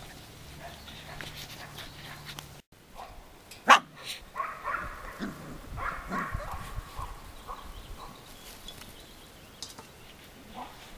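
Month-old Samoyed puppies yipping and giving small barks, a string of short high calls mostly between about four and seven seconds in. Just before them comes a single sharp knock, the loudest sound here.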